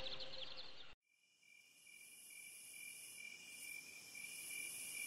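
The sustained tail of a song cuts off abruptly about a second in. Then a faint, steady, high-pitched chirring of insects, crickets, fades in.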